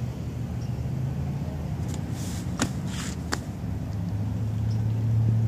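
Low steady hum of road traffic, growing louder near the end as a vehicle comes closer. Two sharp clicks and a brief rustle come in the middle.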